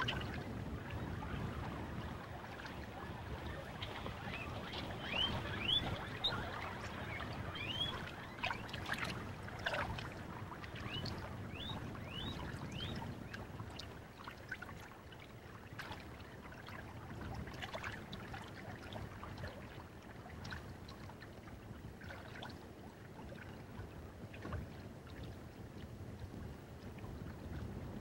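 Lake water lapping and sloshing while a lemming swims across, with small splashes. A run of short, high, rising chirps comes in the first half.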